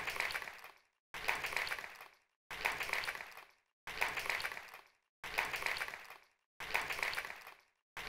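Audience applauding after a talk, chopped into about six near-identical bursts of roughly a second each with abrupt silent gaps between them, as if one short stretch of applause were looped.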